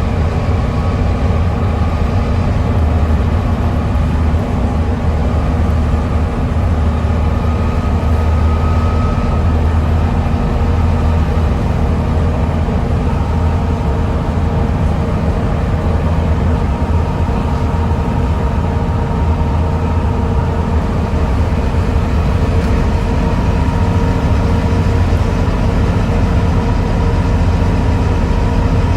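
Volvo B7TL double-decker bus's six-cylinder Volvo D7C diesel running steadily, a deep engine rumble with the vacuum-cleaner-like whine known as 'hoovering' over it.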